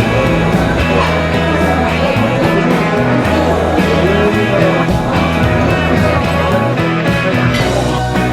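Background music: a rock song with guitar, bass and a steady beat, with some singing.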